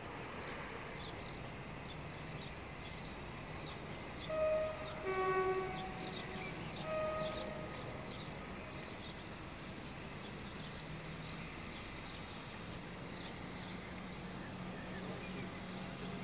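Two-tone train horn sounding three short notes, high, low, high, about four seconds in. A low steady hum builds through the second half.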